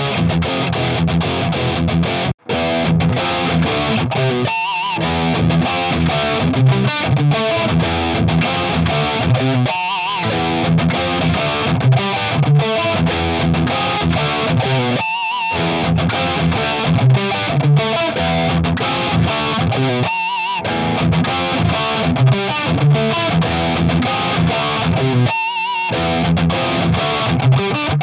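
Distorted electric guitar riff played on a Japanese-made History Les Paul-style guitar through its stock History pickups. The same riff repeats about every five seconds, each pass ending in a short break, and the sound cuts out for an instant a little over two seconds in.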